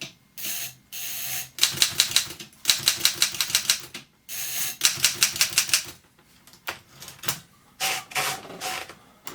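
Wartime Continental manual typewriter's mechanism clicking in quick, even runs, about ten clicks a second, three runs of about a second each, with some rubbing and a few single clicks later.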